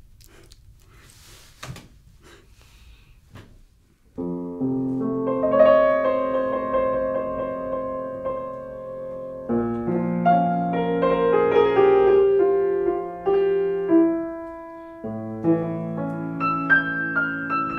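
A few faint knocks, then a piano starts playing about four seconds in: a melody over held chords, in phrases that restart every five or six seconds.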